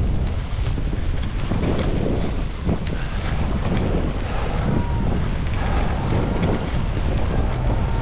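Wind buffeting the camera microphone while skiing fast downhill. Through it come swells of hissing and scraping, about one a second, as the skis' edges carve turns on groomed snow.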